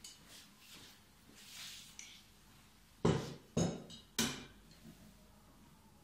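Three sharp metallic clanks about half a second apart, each with a short ring, as the metal handle is fitted against the frame of a one-row hand-push vegetable seeder. Before them, soft rustling of the parts being handled.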